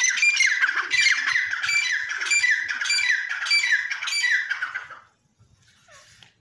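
Grey francolin (teetar) calling in a loud run of about eight harsh, evenly repeated notes, nearly two a second, that stop about five seconds in. The bird is an agitated male, worked up to fight.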